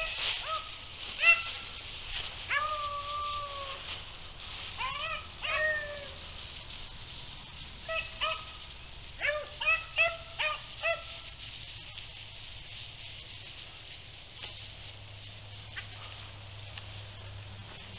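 Hunting hounds baying on a rabbit's trail: short yelps and a few drawn-out howls in scattered bursts for the first eleven seconds or so, then they die away.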